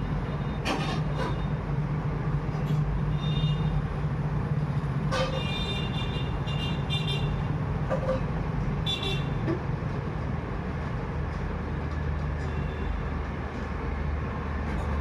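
Road traffic running by, with short horn toots several times, around three, five to seven and nine seconds in.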